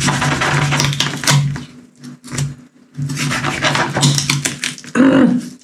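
Background music with steady low tones and a fast, clicking beat, dropping out briefly about two seconds in.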